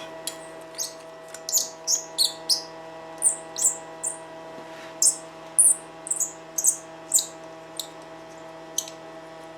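A small bird chirping: a string of short, high chirps at irregular intervals, over a steady electrical hum.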